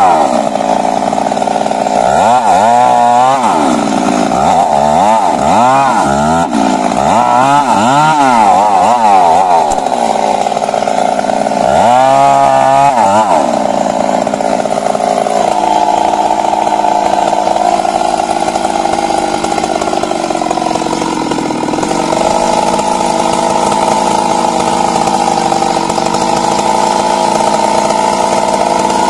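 Stihl MS 382 two-stroke chainsaw running while cutting wood. Its pitch rises and falls repeatedly through the first half, then it runs at a steadier pitch.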